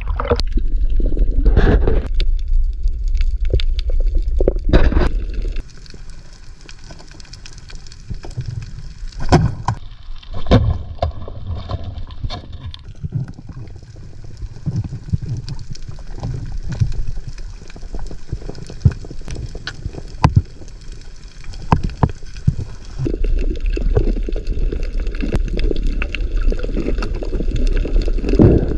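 Seawater sloshing and gurgling around an action camera at the surface for the first five seconds or so. It then gives way to muffled underwater sound with scattered sharp clicks and crackles. Louder water noise returns about 23 seconds in.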